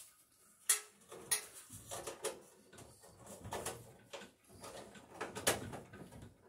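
Sheet-metal bathroom exhaust fan housing clicking and rattling as the wires are folded and pushed into it. The knocks are irregular and sharp, with the loudest about a second in and again near the end.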